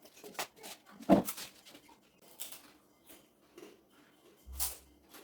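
Eating sounds at close range: scattered wet smacks and clicks of chewing, with a sharp one about a second in and a duller thud near the end.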